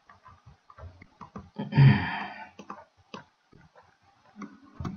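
Scattered light clicks of a computer mouse, with a louder noise lasting under a second about two seconds in and a sharper click near the end.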